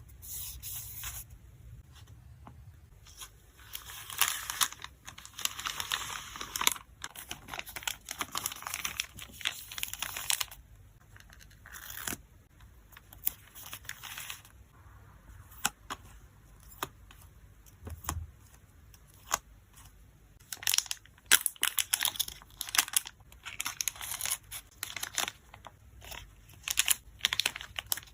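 Photocard packing by hand: plastic and paper packing materials crinkling, rustling and tearing, with many small clicks and taps. A longer stretch of rustling comes a few seconds in, and the handling grows busier again towards the end.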